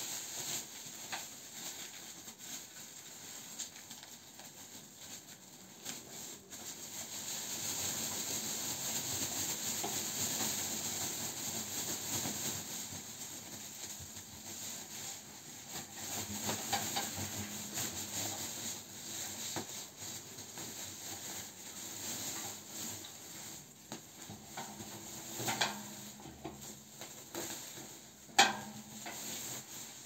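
Rustling of a plastic rubbish bag and nylon jackets as they are tipped out of a wet-and-dry vacuum cleaner's drum into the bag, with two sharp knocks near the end.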